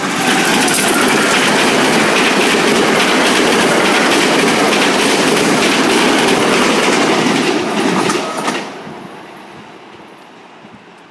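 SEPTA AEM-7 electric locomotive and its push-pull coaches passing close by at speed: loud steady wheel-on-rail noise with clickety-clack over the rail joints. The noise drops away about eight and a half seconds in as the last car goes by and fades as the train recedes.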